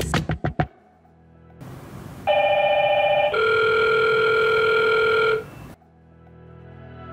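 Electronic tones from a Hikvision 2-wire video intercom powering on: a short warbling tone at two pitches for about a second, then a steady lower tone for about two seconds. Background music with a few drum hits fades out just before.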